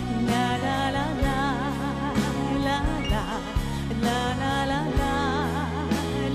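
A woman singing a song with vibrato on her held notes, over band accompaniment with a steady beat about once a second.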